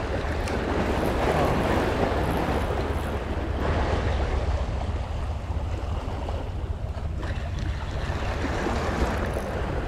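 Sea waves washing and breaking against shoreline rocks, swelling and easing several times, with steady wind rumbling on the microphone.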